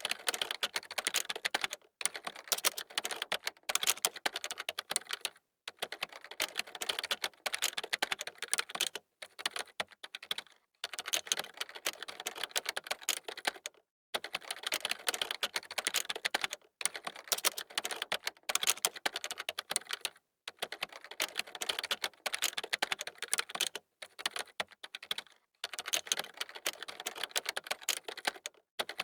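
Typing on a computer keyboard: quick runs of key clicks, broken every second or two by brief pauses.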